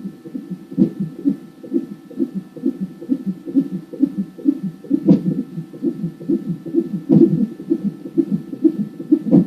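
A 34-week fetus's heartbeat from a non-stress-test Doppler fetal monitor, heard through the monitor's speaker as a fast, rhythmic whooshing beat. About four sharper knocks break into the beat: the baby's hiccups.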